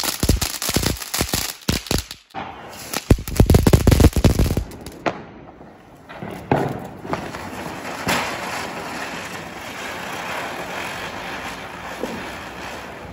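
Fountain fireworks spraying sparks. The first crackles with rapid sharp pops, louder and denser for a couple of seconds around the middle. After a short lull, a second firework on the ground gives a steady hiss with occasional pops.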